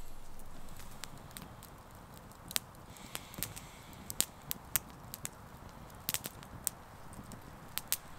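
Small wood campfire crackling: a steady low rush with sharp, irregular pops and snaps, most of them in the second half.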